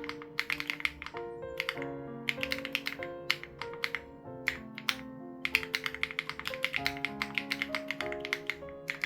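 Fast typing on an SPM AL87B mechanical keyboard with BSUN Raw switches and its sound-dampening foam removed: rapid key clacks in bursts with short pauses, over soft background music.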